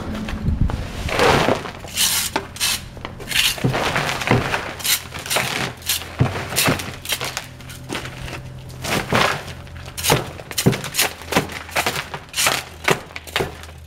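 Small fan-headed shrub rake scraping leaves and debris along the ground, with irregular scrapes and knocks of the tines on pavement and mulch, about one or two strokes a second.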